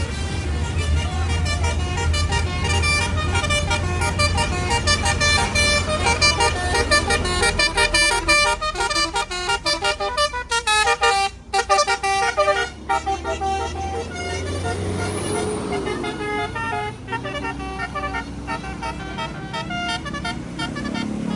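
An Indonesian tour bus's musical telolet horn playing a rapid tune of short stepped notes, with a brief break partway through, over the low rumble of the bus's running engine.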